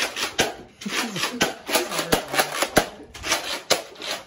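Sharp plastic clicks and snaps of Nerf blasters and foam darts being handled, several a second and unevenly spaced, with a brief voice between about one and two and a half seconds in.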